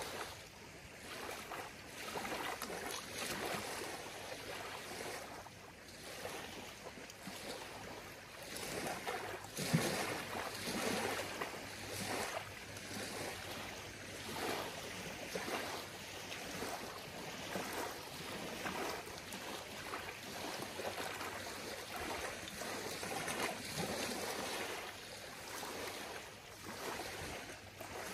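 Small lake waves lapping and washing onto a dark gravel beach, swelling and fading in uneven surges every second or two, with one louder thump about ten seconds in.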